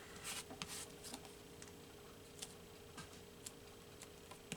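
Faint, scattered light ticks and soft rustles from paper cutouts being handled, over a faint steady hum.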